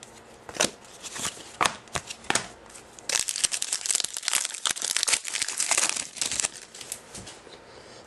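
Trading cards and their wrapping being handled: a few sharp snaps in the first couple of seconds, then about three and a half seconds of dense crinkling from around three seconds in.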